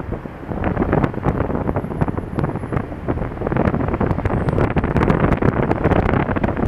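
Wind buffeting an action camera's microphone while riding a Honda Dio scooter, with many small crackles. It grows louder a few seconds in.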